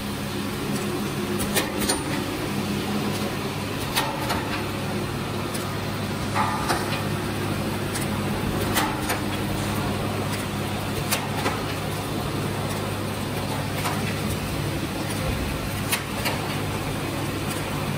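Pillow bag flow-wrapping machine running as it packs bouillon cubes: a steady low machine hum with sharp clicks about every couple of seconds from its sealing and cutting mechanism.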